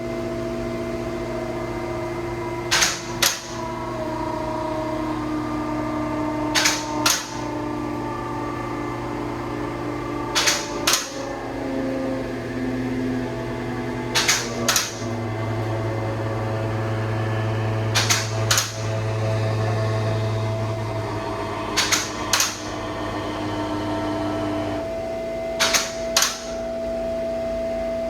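Four-post car lift rising: its hydraulic pump motor runs steadily while the safety locks clack in pairs, about every four seconds, as they pass each lock position.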